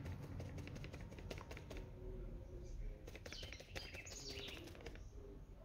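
Clear plastic bag crinkling faintly in many small crackles as powdered sulfur is shaken and tapped out of it onto a scale, with faint bird chirps about three seconds in.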